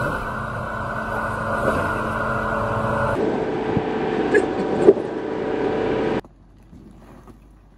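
Jeep Grand Cherokee Trailhawk running as it crawls over a rocky trail, with two sharp knocks a little over four and about five seconds in. The sound stops abruptly about six seconds in, leaving only faint background.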